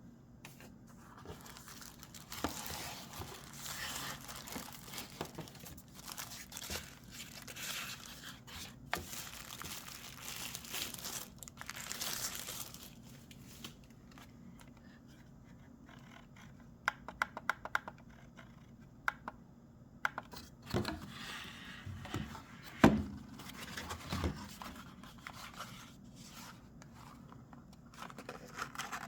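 Packaging being opened by hand: plastic or paper rustling and tearing, then a quick run of small clicks and a few sharp knocks as parts are handled.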